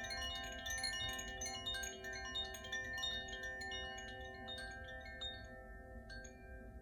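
Koshi chime ringing, its tuned rods struck over and over by the clapper inside, with many quick tinkling strikes over overlapping, sustained ringing tones. The strikes thin out after about five seconds and the ringing slowly fades.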